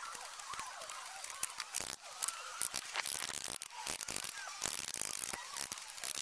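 Concrete pavers being laid on a gravel bed: gritty scraping of gravel and stone, with many sharp clicks and knocks as the pavers are set and tapped down with a hammer.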